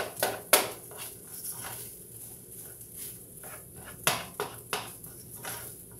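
A cooking utensil stirring and scraping fried rice in a pan, with irregular knocks and clinks against the pan. The sharpest come right at the start, about half a second in, and in a quick cluster about four seconds in.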